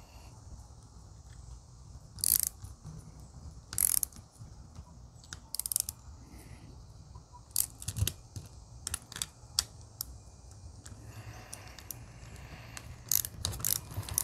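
Small socket ratchet clicking in short, irregular runs as it cranks the screw of a sight pusher tool, pressing a rear sight across a pistol slide's dovetail. The sight is a tight fit.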